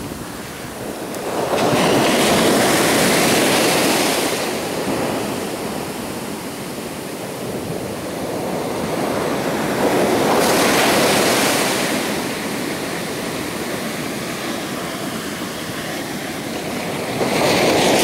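Ocean waves breaking and washing in: a continuous rushing of surf that swells loudly twice, a few seconds in and again about ten seconds in, with another surge building at the end.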